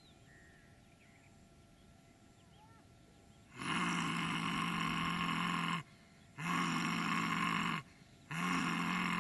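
A person roaring three times from simhasana (lion pose), mouth wide open and tongue out. Each is a long, steady-pitched 'haaa' held one and a half to two seconds, with short breaths between. The first starts about three and a half seconds in.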